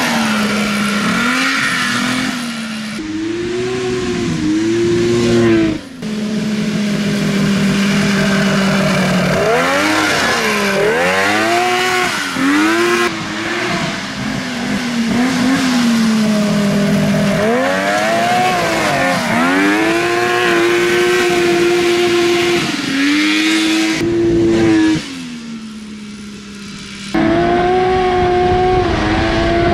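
Polaris XLT 600 two-stroke snowmobile engine in a small off-road buggy, revving up and down again and again as it accelerates and backs off, its pitch sweeping high and low. It drops away briefly near the end.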